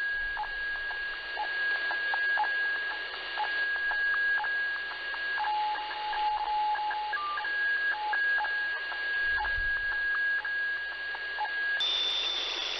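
Shortwave radiofax (HF fax) signal received through a web SDR: a steady tone at the white level over radio hiss, breaking in the middle into stretches of a lower black-level tone with faint ticks as the picture lines are sent. Near the end it changes to a different, higher steady tone.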